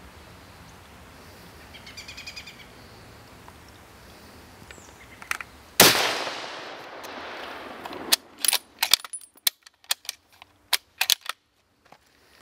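A single rifle shot from a scoped rifle about six seconds in, with a sharp crack and an echo dying away over about two seconds. Then a string of sharp clicks and knocks.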